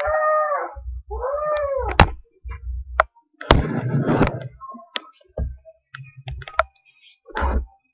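Two drawn-out meows, each rising then falling in pitch, in the first two seconds, followed by scattered low thumps, sharp knocks and a short burst of rustling handling noise.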